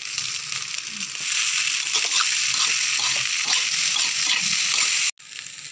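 Nasi goreng (fried rice) with scrambled egg sizzling in a hot pan as it is stirred and mixed with a spatula, the hiss broken by many light scraping strokes. The sound cuts off abruptly about five seconds in.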